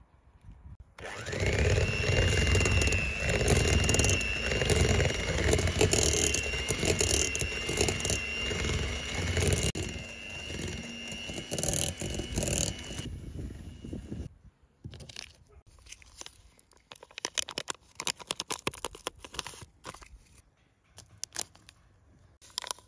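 Electric stand mixer switched on, its motor whining up to speed and running steadily as the beaters churn a batter for about twelve seconds before it stops. Small clicks and rustles follow.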